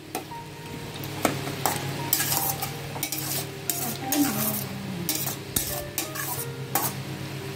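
Spatula stirring a simmering curry in a stainless-steel kadai, scraping and knocking against the pan a dozen or so times at an uneven pace over a light sizzle.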